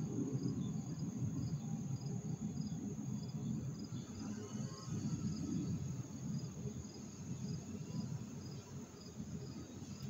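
Crickets chirping at night: evenly spaced high chirps about twice a second over a steady high insect trill, with an uneven low rumble underneath.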